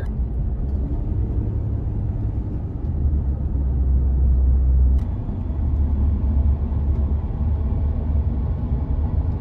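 Road and engine rumble inside a moving pickup truck's cab, a steady low drone. A single sharp click about five seconds in.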